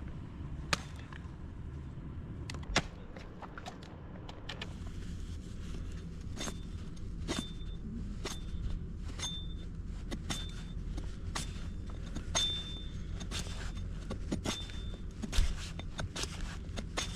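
A series of sharp knocks and clicks, about one a second through the middle stretch, many with a brief high ring, over a steady low rumble of wind on the microphone.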